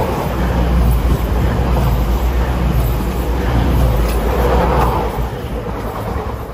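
Class 222 Meridian diesel multiple unit passing close by at speed: a loud, steady low rumble of engines and wheels on the rails, easing as the last car goes by near the end.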